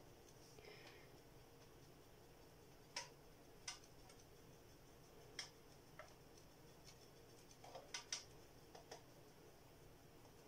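Faint, scattered light ticks and taps from a fluffy paintbrush dabbing paint onto a painted terracotta pot, several close together about two-thirds of the way through.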